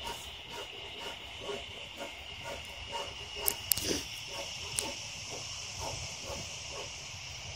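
Steady high-pitched chorus of insects, with a fainter quiet rhythmic scraping about three times a second and a few sharp clicks near the middle.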